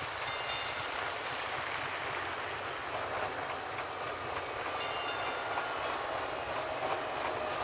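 DART light rail train passing on its tracks: a steady rushing of wheels on rail, with a whine that slowly falls in pitch over the second half and a few sharp clicks about five seconds in.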